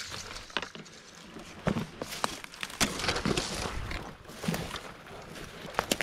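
Footsteps crunching through woodland undergrowth: uneven steps with crackles and snaps.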